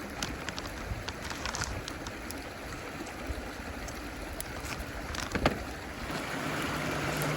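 Wood fire crackling in a fire-pit stand, sharp pops scattered through and one louder pop about five and a half seconds in, over a steady rushing background. A low steady hum comes in near the end.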